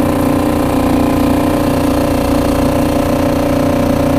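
Small outboard motor on a Hobie Adventure Island kayak, running steadily at constant speed and pitch.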